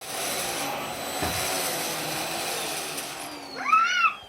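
Household vacuum cleaner running steadily with a motor whine. About three seconds in, the whine starts falling as the motor winds down. Near the end a toddler gives a short high squeal, the loudest sound here.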